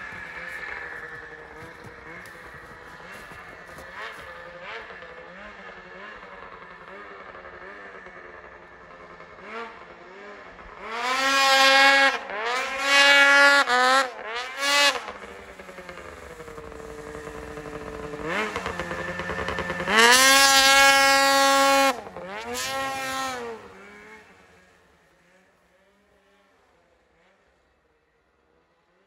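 Ski-Doo 600RS race snowmobile's two-stroke engine. It runs faintly at first, then revs hard twice, about eleven and about twenty seconds in, its pitch climbing and dropping as the throttle is opened and closed through wheelies. It then fades away to near silence in the last few seconds.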